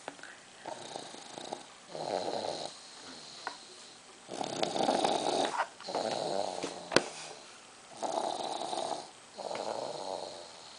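A sleeping person snoring through three slow breaths, each with a rasping snore on the way in and another on the way out. A single sharp click comes about seven seconds in.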